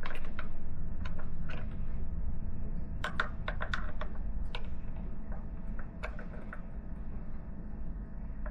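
Scattered light clicks and taps, with a quicker run of clicks about three to four and a half seconds in, over a steady low hum.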